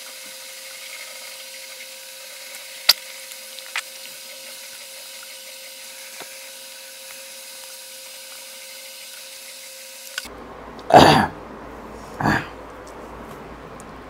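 Two short loud coughs or throat-clearings close together near the end, over a faint steady hiss with a thin hum; a single sharp click about three seconds in.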